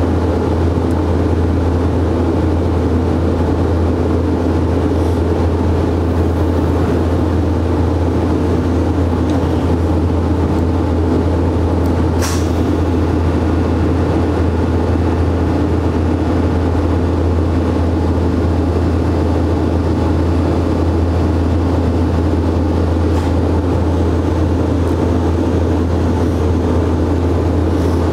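Steady, unchanging low machine drone, with one sharp click about twelve seconds in.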